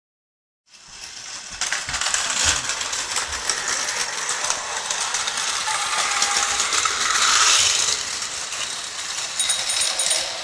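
Battery-powered Tomy toy trains and motorized playset pieces running on plastic track: a continuous rattling clatter of small plastic parts that starts about a second in.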